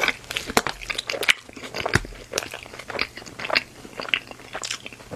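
A person biting and chewing crunchy food close to the microphone, in a quick, irregular run of sharp crackling crunches.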